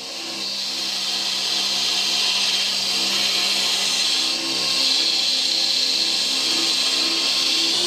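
Belt grinder running with a steel katana blade pressed against its abrasive belt: a steady grinding hiss over the motor's hum. It builds over the first second or so, then holds, with a brief dip about four seconds in.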